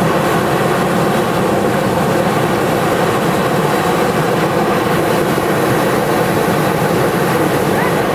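Hot-air balloon's propane burner firing in one long, steady blast, heating the envelope for lift-off.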